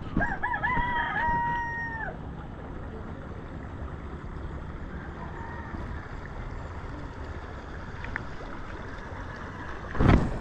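A rooster crowing once for about two seconds: a few short wavering notes, then a long held note that drops away at the end. A loud gust of wind hits the microphone near the end.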